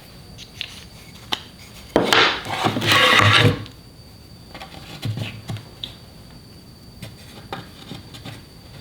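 Wood pieces being handled on a workbench: scattered light knocks and clicks, and a rough scraping rub of wood on wood lasting about a second and a half, starting about two seconds in.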